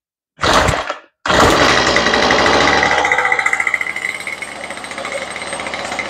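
Toro string trimmer's small two-stroke engine pull-started on choke. There is a short burst about half a second in, then it catches just over a second in and keeps running, loud at first, then easing to a steadier idle. It starts easily on its freshly fitted carburetor and primer bulb.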